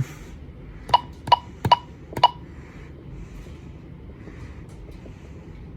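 Alarm system keypad giving four short key-press beeps about half a second apart, as a four-digit code is entered to disarm the system.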